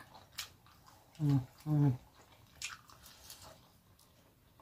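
Close-up eating sounds of a person chewing roast duck, with scattered wet mouth clicks. A little over a second in come two short hummed "mm-mm" sounds, the loudest thing heard.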